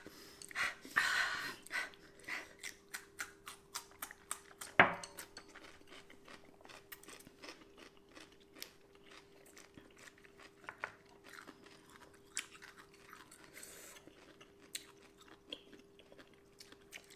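Close-up chewing of thin slices of pickled sushi ginger, with crisp crunches and wet mouth clicks, busiest in the first two seconds and quieter after. One sharp click, the loudest sound, comes just before five seconds in.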